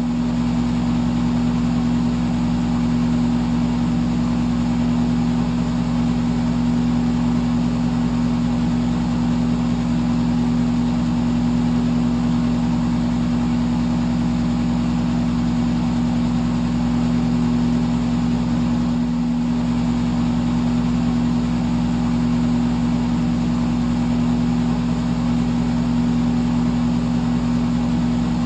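Electric fan running steadily: an even rush of air over a low, constant motor hum.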